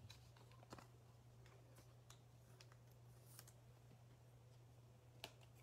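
Near silence with faint, scattered clicks of trading cards being handled and set down on a table, the sharpest about five seconds in, over a steady low hum.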